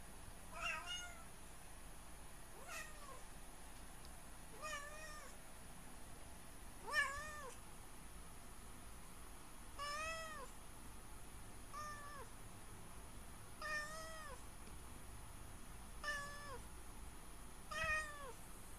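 A domestic cat meowing again and again: nine short meows about two seconds apart, each rising and then falling in pitch.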